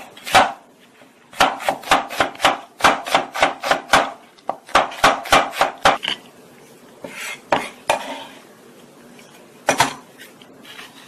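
Kitchen knife chopping onion on a wooden cutting board in quick strokes, about four a second, with a brief pause about half a second in. After about six seconds the chopping stops; there is softer scraping as the chopped onion goes into a glass bowl, then a single sharp knock near the end.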